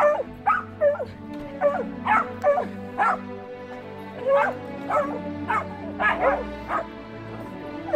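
A dog barking and yipping excitedly: about a dozen short, sharp barks at uneven spacing. Underneath is string orchestra music.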